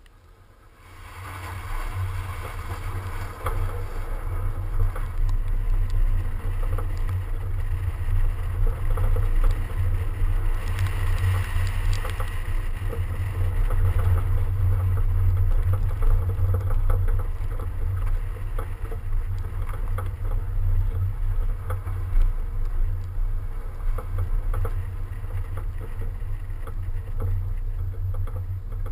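A BMW 335d drives on packed snow, heard from a camera mounted outside on the car's side. There is a heavy, steady low rumble of wind buffeting and road noise over a hiss of tyres on snow. It starts about a second in as the car pulls away and stays loud throughout.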